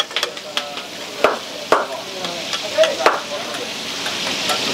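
Metal spatula scraping and clacking on a large flat tawa griddle as chicken pieces, tomatoes and onions fry in oil, with irregular sharp strikes over a steady sizzle. The sizzle grows louder near the end.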